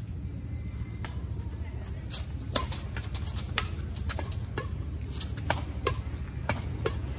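Badminton rackets hitting a shuttlecock in a fast doubles rally: a string of sharp pops starting about two seconds in, about one every half second to second, over a steady low city rumble.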